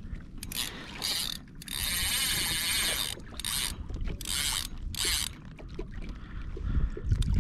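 Large saltwater spinning reel cranked in short bursts under load as a hooked fish is fought, a mechanical gear whir that stops and starts with each spell of reeling, the longest lasting about a second.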